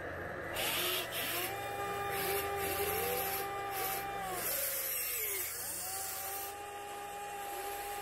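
Whine of the electric drive motors of a 1/14-scale RC Volvo EC160E excavator working its boom, arm and swing while digging. The whine comes in two spells with a break around halfway, each tone gliding up as a motor starts and down as it stops, over a hiss.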